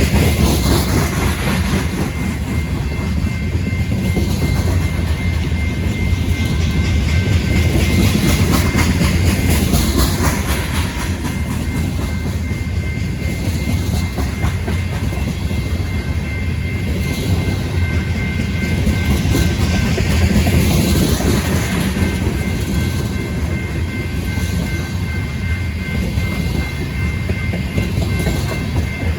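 Railroad cars rolling past at close range, a steady loud rumble of wheels on rail, with a thin high steady tone running above it.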